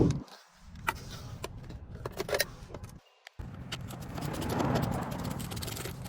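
BMW E36 328is straight-six engine idling steadily after starting, with scattered clicks over it; the sound cuts out briefly twice.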